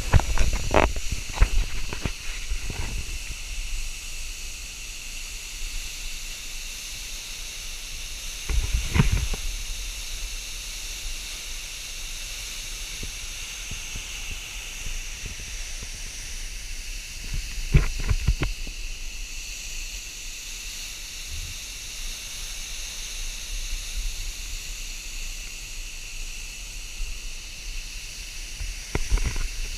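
Steady rushing hiss of a waterfall, with a few brief low rumbles on the microphone: near the start, about nine seconds in, about eighteen seconds in and near the end.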